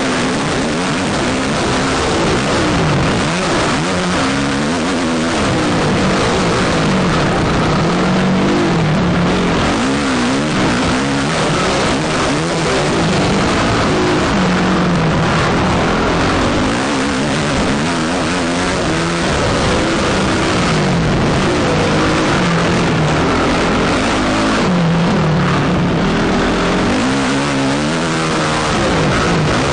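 Motocross bike engine heard from on the bike, revving hard and easing off again and again as it runs round the track, its pitch rising and falling every few seconds.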